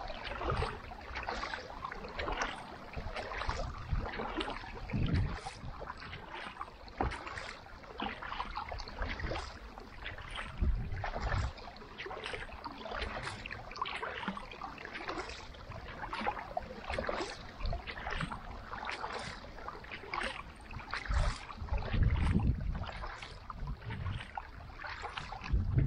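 Kayak paddling: a carbon paddle's blades dipping and splashing in the water stroke after stroke, with water lapping and a few low thumps.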